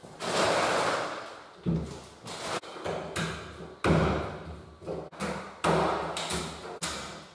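Hollow knocks and thuds from a melamine kitchen base unit carcass being handled and its black plastic adjustable legs pushed into the base, about a dozen separate knocks at an uneven pace. A scraping rustle runs through about the first second.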